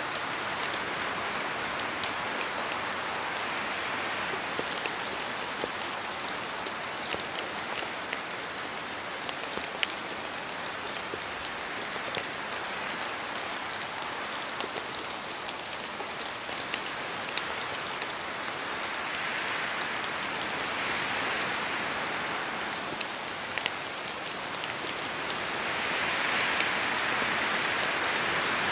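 Steady rain falling, with a dense patter of individual drops, and wind swelling up in gusts twice in the second half.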